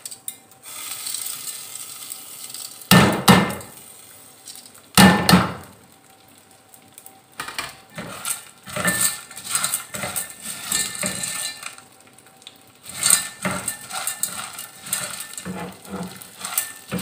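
Two loud knocks on metal about two seconds apart, then a spatula scraping and clinking round an aluminium pot as gond (edible gum) is stirred in hot ghee.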